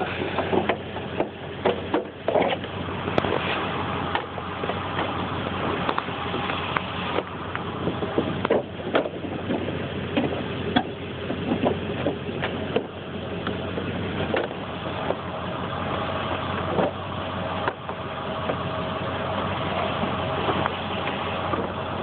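A vehicle engine idling steadily, with frequent short clicks and knocks over it.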